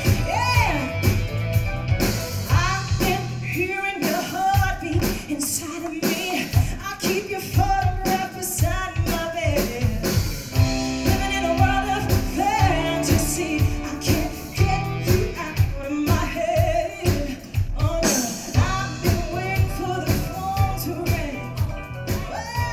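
A woman singing live into a microphone, backed by a band with a steady drum beat and keyboard.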